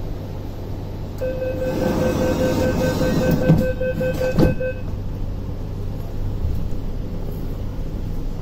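Tuen Ma Line C-train's door-closing warning: a steady high beeping tone for about three and a half seconds while the doors slide, ending in a sharp thump about four and a half seconds in as the doors shut, over the steady low hum of the train's equipment.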